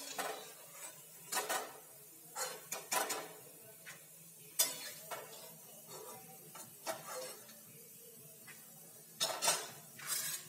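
A metal spoon clinking and scraping against an aluminium kadhai in irregular knocks every second or two, as fried urad dal tilauri are stirred in hot oil and lifted out.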